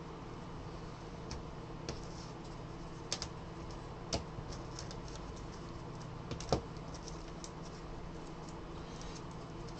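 Trading cards being handled: a stack flipped through and cards and packs set down on a table, giving a few light, irregular clicks and taps over a steady low hum.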